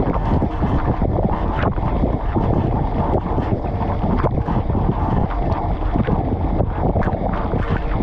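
Dishwasher in its wash cycle, heard from inside the tub: spray arms throwing water that splashes and drums against the racks, a plate of food and the camera itself, over the steady hum of the wash pump. A dense, continuous rush with constant irregular splashes.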